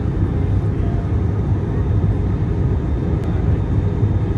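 Steady cabin noise of an Airbus A320 in flight, heard inside the cabin at a window seat: an even, low-pitched rumble of engines and airflow with no change in level.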